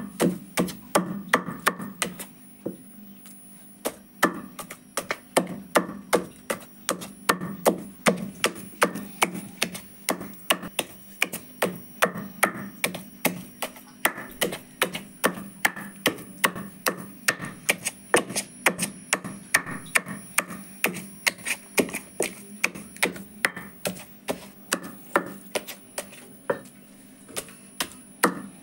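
Pestle pounding raw chicken in a heavy stone mortar, grinding it to a paste for rista meatballs. The thuds come in a steady rhythm of about two a second, with a short pause about three seconds in.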